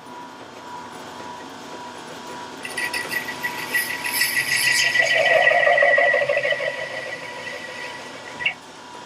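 A 1941 South Bend 13-inch lathe's cutting tool takes a cut across the shoulder of a sawmill blade guide roller. About three seconds in, a high-pitched ringing whine builds up, then fades and stops with a short click near the end. Under it the lathe runs steadily with a thin hum.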